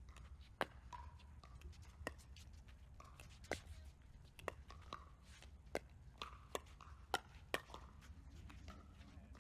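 Pickleball rally: about ten sharp pops of composite paddles striking the hollow plastic ball, irregularly spaced, with the hits coming faster in the second half as the players trade volleys near the net.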